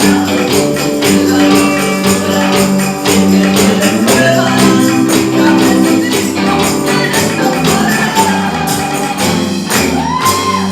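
Gospel worship music with a tambourine beating a quick, steady rhythm over held low chords.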